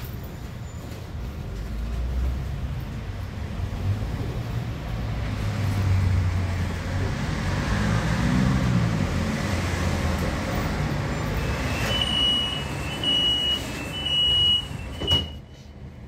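Astra Imperio Metropolitan tram running, its traction motors and running gear humming low. Near the end come four short high beeps, the tram's door warning signal.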